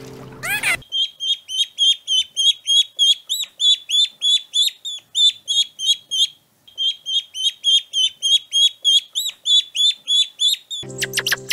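Chicks peeping over and over, high short chirps at about three a second, with a brief pause a little past the middle.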